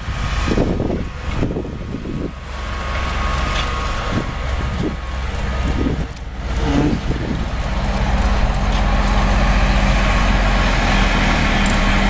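Diesel engines of a tractor pulling a sugar beet harvester and of a loaded beet truck running together, uneven for the first few seconds, then a steady drone that grows louder from about eight seconds in as the machines come closer.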